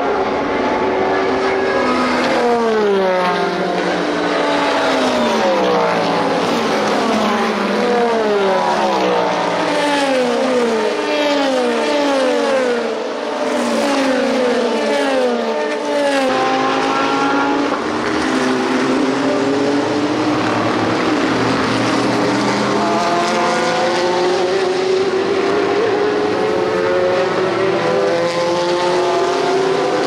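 Race car engines at full race pace, several cars passing one after another with their engine notes falling in pitch. About halfway through, a pack of engines climbs steadily in pitch as the cars accelerate.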